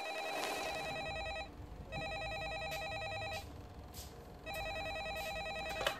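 Landline desk telephone ringing with an electronic warbling trill: three rings, each about a second and a half long.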